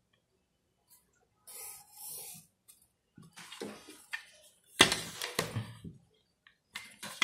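A pencil scratching twice along the edge of a plastic Roll-n-Draw 30 cm rolling ruler on drawing paper. Then the ruler is shifted across the sheet and set down with a run of knocks and clatter, the loudest about five seconds in.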